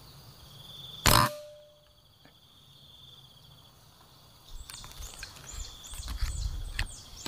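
A single sharp shot from a PCP air rifle about a second in, over a steady high trill of insects. Near the end there is a run of quick high chirps and low rumbling handling noise.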